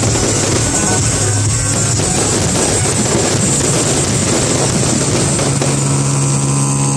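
Loud music with drums playing over a fireworks display, mixed with the dense crackle of fireworks. About five and a half seconds in, the music settles onto held notes.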